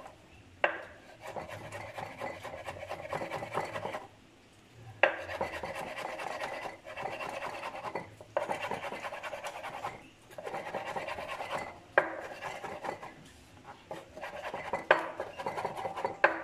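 Kitchen knife chopping a tomato on a wooden cutting board: quick runs of strokes in about five bursts with short pauses between them, each burst opening with a sharper knock.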